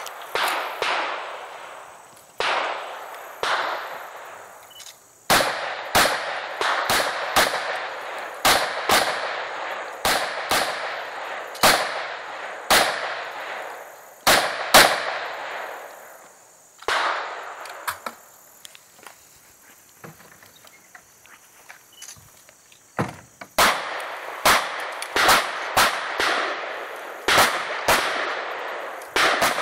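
A competitor's gunfire on a shooting stage: about two dozen single shots, each with a short ringing echo. They come in quick strings, with a pause of several seconds in the middle before a fast string resumes.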